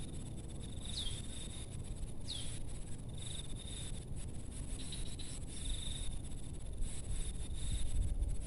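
Insects trilling steadily in a high, pulsing tone, with a few short falling whistled calls in the first few seconds.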